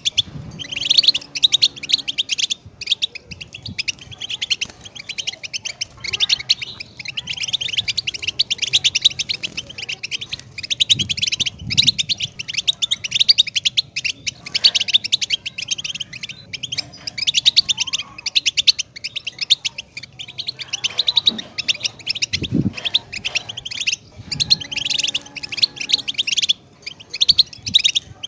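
European goldfinch singing: a long, fast run of high twittering and chirping notes with a few short pauses.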